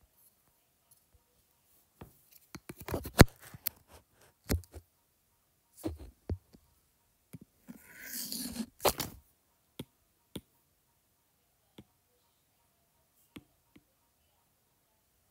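Stylus tips tapping and knocking on a tablet's glass, with handling knocks. There is a cluster of louder knocks about two to four seconds in and a brief rustle around eight seconds, then scattered single ticks.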